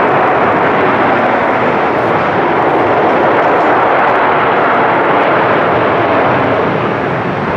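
Jet airliner engine noise: a loud, steady rushing sound that eases slightly near the end.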